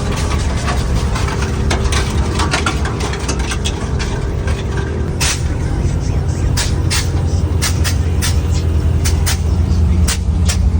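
Lowered truck on air-ride suspension: the engine runs steadily while the suspension valves let off many short, sharp hisses of air.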